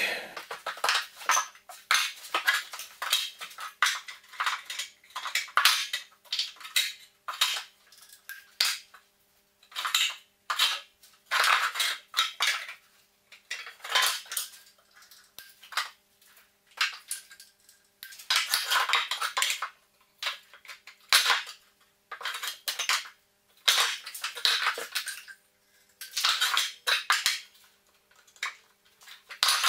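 Irregular clatter, knocks and scrapes of a spirit level and wooden packer offcuts being handled and set down against the wall and floorboards, in short clusters with brief pauses.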